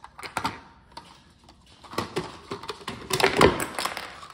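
Plastic toy cars and their snap-on parts clicking and clacking as they are handled and set down on a countertop, with the loudest knock about three and a half seconds in.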